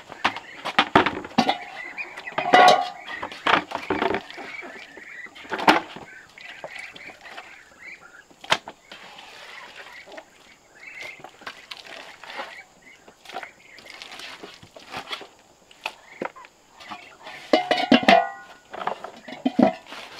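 A metal pot lid clanks as it is lifted off a cooking pot and set back on again, with a short metallic ring each time: once about two seconds in and again near the end. Between the clanks come scrapes, knocks and wet handling sounds as cooked bran mash is scooped by hand from the pot into a plastic bucket.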